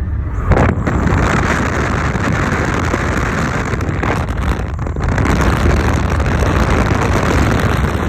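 Nissan Juke on the move: a loud, steady rushing noise with a deep rumble, rising sharply about half a second in, the noise the owner is recording as a fault. Wind is buffeting the microphone.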